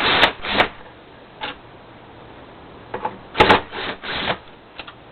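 Clicks and knocks of a Hoover Elite upright vacuum's motor retainers being worked loose by hand: a cluster right at the start and another about three and a half seconds in.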